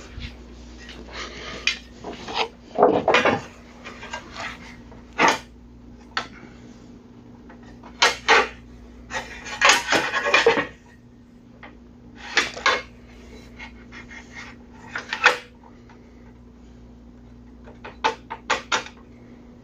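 Wood pieces and hand tools being handled and set down on a workbench: scattered knocks and clacks at irregular intervals, over a faint steady low hum.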